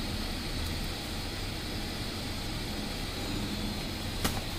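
Steady rushing air noise, with a single sharp click about four seconds in.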